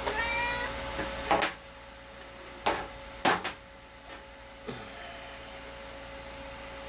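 A house cat meows once at the start. Then the plastic parts of a teardown LED bulb click and knock about five times as they are handled and set down, over a steady faint hum.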